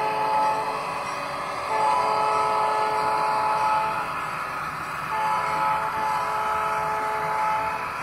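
Diesel locomotive air horn from an ESU LokSound sound decoder, played through the small speaker of an HO-scale locomotive model. One blast ends just under a second in, then come two long blasts of about two seconds each. The decoder's EMD 16-645F3B prime-mover sound runs steadily underneath.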